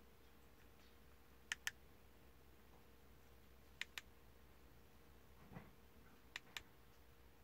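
Three pairs of short, sharp clicks a couple of seconds apart as the touchscreen of an Eonon Android car head unit is tapped through its menus, with a faint low thump between the second and third pair; otherwise a quiet car cabin with a faint steady hum.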